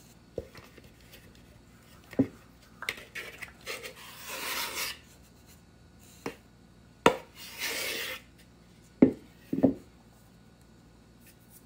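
Flour being tipped and scraped out of a plastic bowl into a stand mixer's stainless steel bowl: scattered dull knocks and taps, and two brief scraping rushes about four and seven and a half seconds in.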